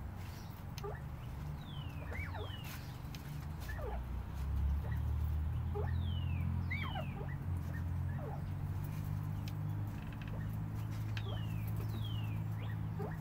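White northern bobwhite quail calling: short whistled notes that slide steeply downward, some arching up first, repeated every second or two over a steady low hum.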